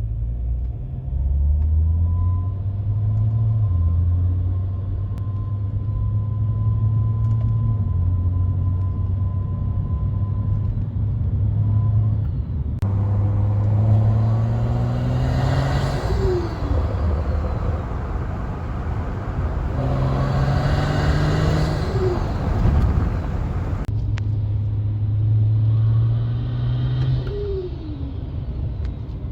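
BMW 135i's N55 turbocharged straight-six, fitted with a Pure Stage 2 turbo and a GFB DV+ diverter valve, with a thin, steady whistle under mild acceleration in the first half. Then three hard pulls, each ending in a short falling moan or howl from the diverter valve as the throttle is released.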